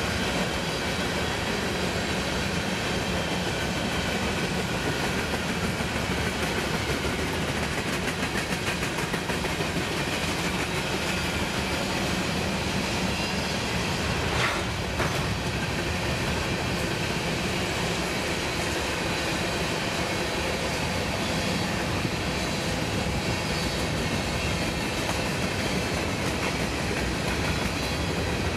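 Freight train cars, mostly covered hoppers and gondolas, rolling steadily past, their steel wheels running on the rails. A brief sharper noise stands out about halfway through.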